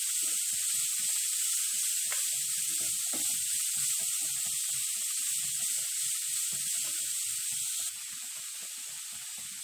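Grated carrot sizzling in hot ghee in a nonstick kadai, with a steady hiss and the soft scrapes and knocks of a plastic spatula stirring it. The hiss gets a little quieter about a second before the end, once the stirring stops.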